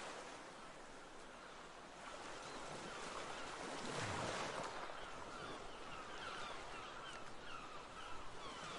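Ocean waves washing, swelling about four seconds in, with faint short bird calls repeating through the second half.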